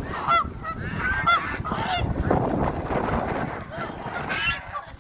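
A flock of geese honking, with many short calls overlapping one another. The calling thins out near the end.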